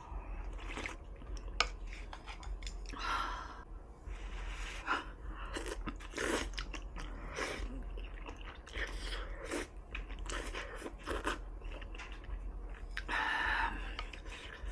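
Close-miked chewing of hot pot food, with irregular wet mouth clicks and smacks.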